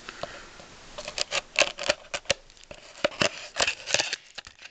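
Trading cards and packs being handled: a quick run of sharp clicks, taps and light scrapes, busiest from about a second in.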